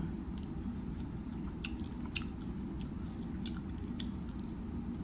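Someone eating a chicken wing: chewing with scattered short wet clicks and smacks, over a steady low background hum.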